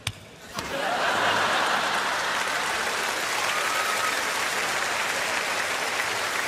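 A short knock right at the start, then about half a second in a large audience starts applauding and keeps clapping steadily.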